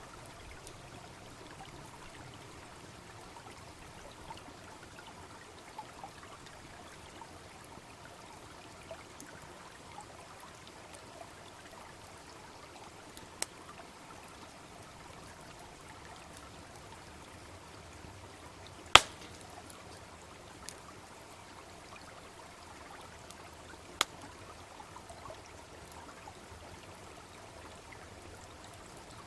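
Steady babbling of a small brook, with a wood campfire giving scattered snaps and pops; the loudest, a sharp crack, comes about two-thirds of the way through.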